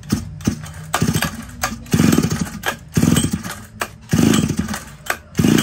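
Old Robin small petrol engine running, revving up in short bursts about once a second and dropping back to a low idle between them.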